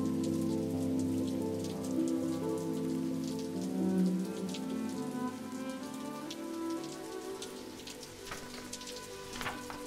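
Rain sound effect: steady rain with scattered raindrops ticking, over soft, slow sustained music notes that grow fainter in the second half; a brief cluster of louder drops near the end.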